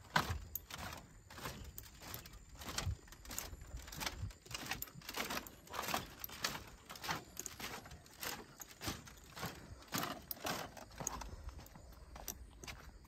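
A run of footfalls, about two or three a second, slightly irregular.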